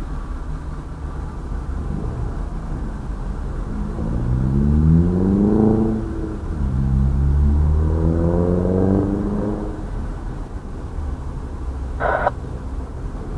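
A steady low engine rumble, with an engine revving up twice, its pitch rising over about two seconds each time. A short, higher-pitched toot sounds near the end.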